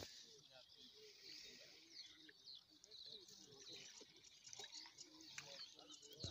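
Faint pond-side ambience: small birds chirping and trilling in quick short calls, with faint distant voices underneath.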